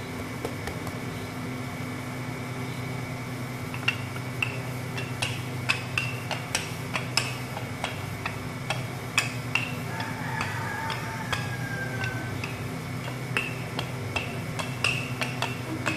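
Light, irregular clicks and taps of hands working croissant dough on a marble worktop, starting about four seconds in, over a steady low hum.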